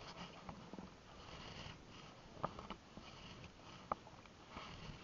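Paddle strokes: faint swishing of the blade through the water, with two short sharp knocks about a second and a half apart.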